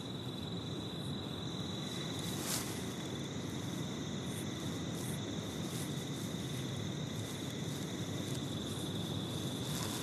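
Night crickets trilling steadily in one high, even tone, over low background noise.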